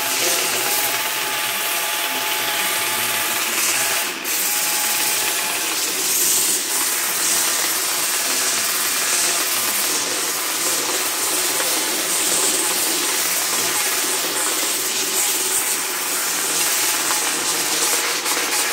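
Electric angle grinder with a sanding disc running steadily while sanding wood and black resin, a continuous whine over the rasp of the disc, with a brief dip about four seconds in.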